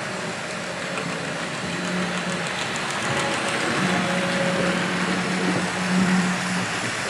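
HO-scale model steam locomotives and log wagons running on the layout's track: a steady electric motor hum over wheels rolling on rail, growing louder through the middle as the log train passes close by.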